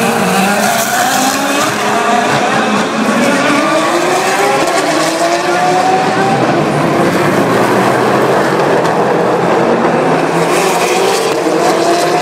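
Several Le Mans series race cars passing one after another, their engines revving up in a string of rising pitches as they accelerate and change up through the gears. The engine noise is loud and does not let up.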